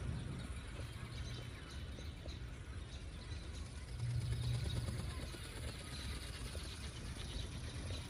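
Faint outdoor background: a low rumble under a steady hiss, swelling a little about four seconds in.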